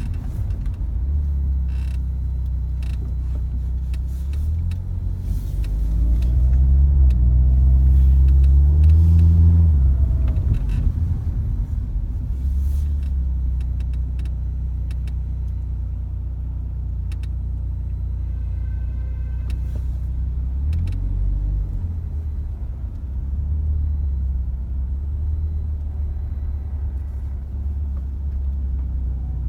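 A car driving, heard from inside: the engine hum rises in pitch with acceleration about a third of the way in. Scattered sharp knocks come through, the suspension-strut knock (Asomi / SS20 Gold struts) that is being demonstrated.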